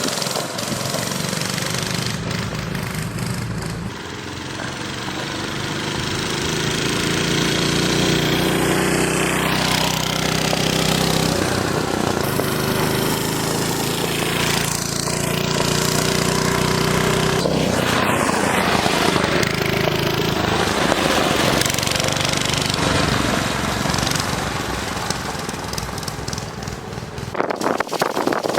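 Small Briggs & Stratton engine on a mini bike running under throttle as it is ridden. It revs up over a few seconds, holds at speed, and eases off near the end.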